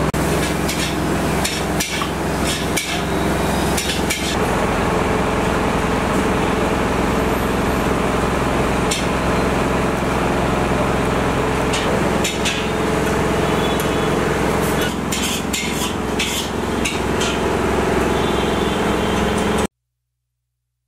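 Busy stall noise: a steady low hum with irregular sharp metallic clicks and knocks. It cuts to silence just before the end.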